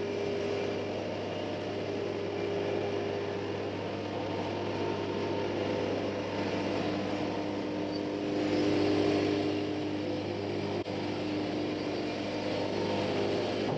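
Wood-Mizer LT-70 band sawmill's diesel engine running steadily, with a slight swell about eight seconds in.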